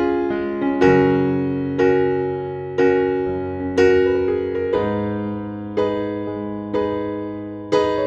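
Background music: electric piano playing slow, sustained chords, struck about once a second and ringing out between strikes.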